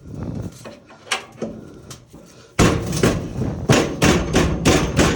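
Screwdriver knocking and scraping against a dryer drive motor's metal retention clip and mount: a few scattered clicks, then from about halfway a rapid run of loud metal knocks and clatter as the tool slips off the stubborn clip.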